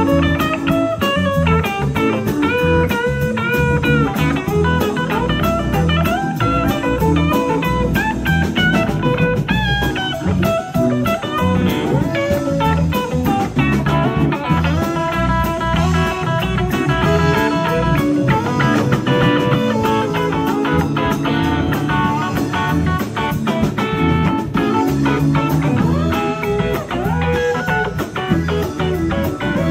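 Live blues-rock band playing an instrumental passage: an electric guitar takes a lead solo, with bending, sliding notes over bass, drums and keyboards.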